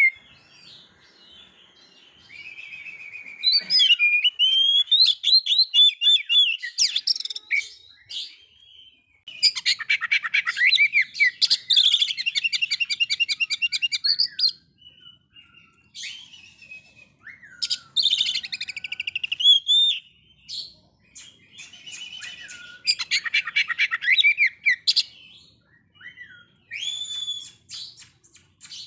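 Oriental magpie-robin (kacer) singing in a series of loud phrases of clear whistles and fast chattering runs, with short pauses between phrases.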